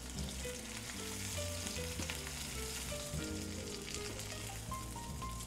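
Ribeye steak sizzling steadily as it fries in butter in a hot pan, with quiet background music of slow held notes underneath.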